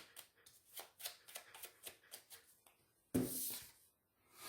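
Tarot cards being shuffled and handled: a run of quick, faint card clicks and flicks, then a louder rustle about three seconds in.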